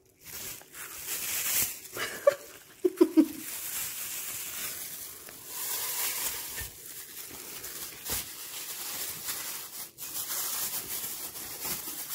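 Thin plastic food bag crinkling and rustling as hands work a ball of dough into it, with a couple of brief louder sounds about two to three seconds in.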